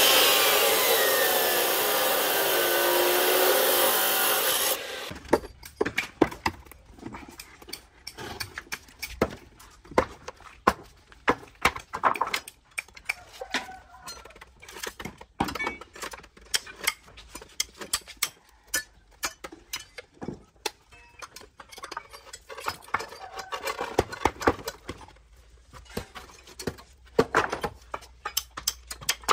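Abrasive cut-off saw grinding through steel rebar, a loud continuous cutting noise that stops abruptly about five seconds in. After that come irregular sharp taps and knocks.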